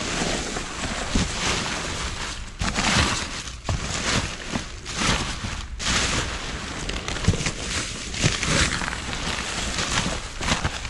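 Rummaging through trash by hand: plastic bags and packaging rustling and crinkling, with irregular knocks and clatters of items being shifted.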